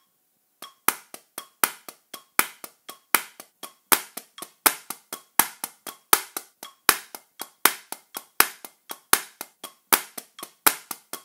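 Wooden drumsticks striking a drum practice pad in steady triplets, starting about half a second in, about four strokes a second, with every third stroke accented. This is the exercise's accent on one partial of each triplet.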